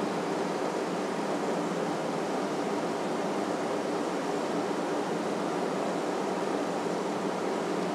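Steady, even hiss-like background noise with no distinct sounds in it.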